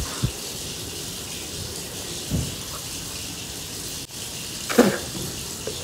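Tap water running into a bathroom sink: a steady hiss. Two soft low thumps come early on and a short vocal sound about five seconds in.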